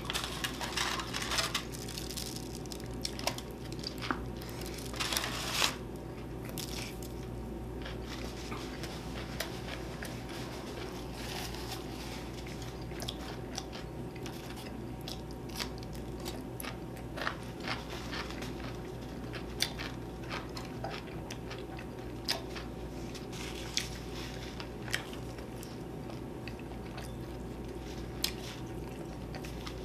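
A person biting and chewing food, with soft crunches and wet mouth sounds coming in short, scattered bursts, busiest in the first few seconds. A steady low hum runs underneath.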